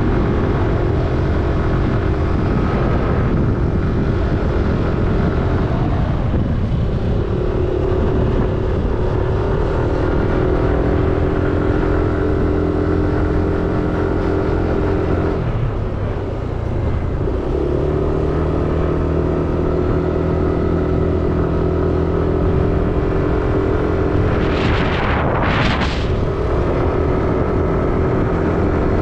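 Motorcycle engine running along at road speed, heard from on the bike with wind noise over it; the engine note drops and picks back up twice. A brief rush of hiss comes a few seconds before the end.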